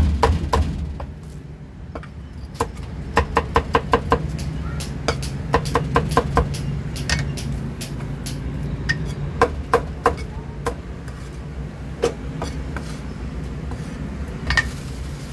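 Meat cleaver chopping roast pork and duck on a thick wooden chopping block: quick runs of sharp chops in the first half, then only a few scattered knocks. A steady low rumble of street traffic runs underneath.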